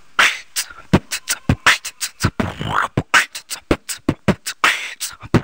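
A young man beatboxing close into a handheld microphone: mouth-made kick-drum thumps mixed with hissing snare and hi-hat sounds in a quick rhythm, about four strokes a second.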